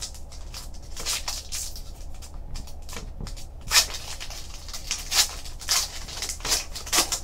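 Foil trading-card pack wrapper crinkling as it is torn open and pulled apart: a run of short rustles and crackles, with several louder ones in the second half.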